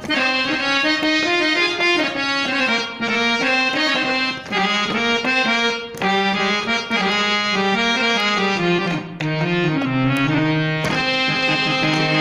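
Harmonium, a hand-pumped free-reed keyboard, playing a solo melody in short phrases. The melody works its way down to its lowest notes about ten seconds in, then jumps back up.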